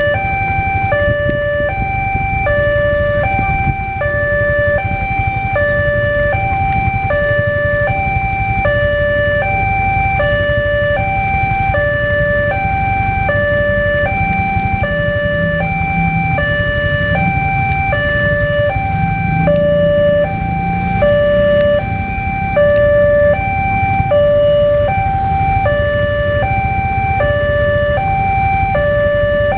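Railway level-crossing warning alarm sounding a steady two-note high-low alternation that repeats evenly while the barriers are down, with road traffic engine noise beneath.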